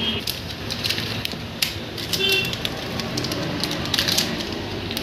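Scattered clicks, taps and metallic clinks of hand tools and engine parts being handled, with two short metallic rings, one at the start and one a little over two seconds in.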